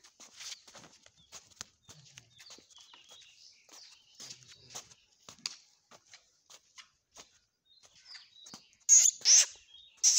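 Birds chirping in quick, scattered calls, with a few much louder, harsher calls about nine seconds in.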